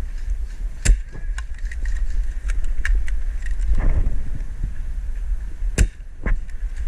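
Low rumble of wind and movement on a body-worn microphone, broken by two sharp clicks, one about a second in and one near the end, with faint ticks between them.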